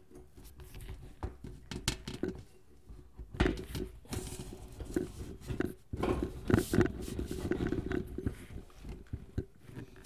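Handling noise as a mini bike seat is worked onto its frame and hooked into the bracket: irregular knocks, taps and scrapes, the sharpest about three and a half seconds and six and a half seconds in.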